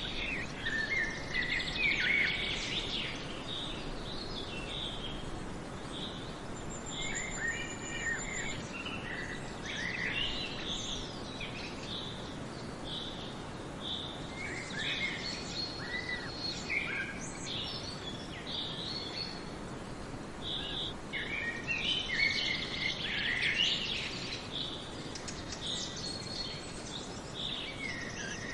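Forest songbirds singing, with many short, repeated chirps from several birds over a steady background hiss. One thin, high whistle is held for about two seconds around seven seconds in.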